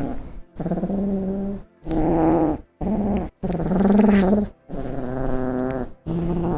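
A cat giving a string of long, low, drawn-out meows, about seven in a row, each held at a steady pitch and separated by short silent gaps.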